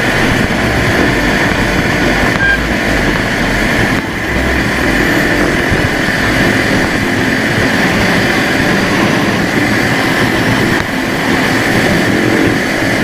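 KTM motorcycle being ridden at a steady pace: the engine runs under a constant rush of wind and road noise.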